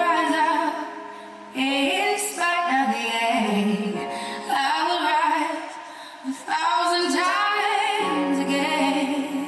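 Music with a woman singing sustained notes with vibrato, in several phrases separated by short dips.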